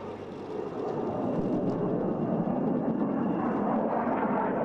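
Jet noise of an F-35 Lightning II fighter flying overhead: its single F135 turbofan is a steady rush that grows louder about a second in.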